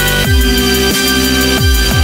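Electronic dance music with a heavy bass line whose notes slide downward in pitch, over sustained synth tones.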